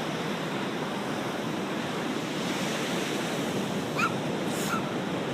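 Ocean surf washing steadily on the shore. A couple of short, high-pitched sounds come through about four seconds in.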